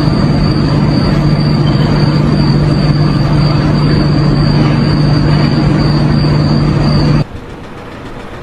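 Loud, steady machine noise with a constant low hum and a thin high whine above it, cutting off abruptly about seven seconds in.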